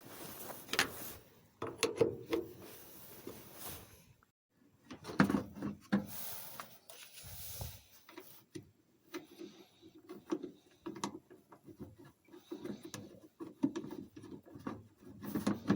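Scattered clicks, knocks and scraping of hand work on metal parts, as the truck's battery cables are reconnected with a wrench.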